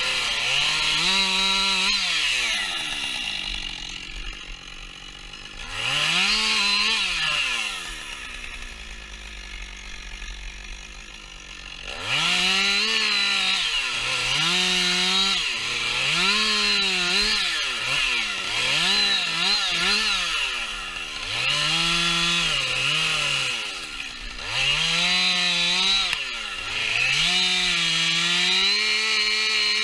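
Two-stroke chainsaw delimbing a felled spruce: the engine revs up for each branch cut and drops back between cuts. It falls to a low idle twice in the first half, then runs through a quick series of rev-ups.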